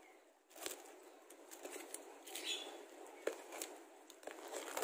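Utility knife blade cutting through a plastic mailer package's wrapping: a faint scratchy hiss with scattered small clicks and crinkles.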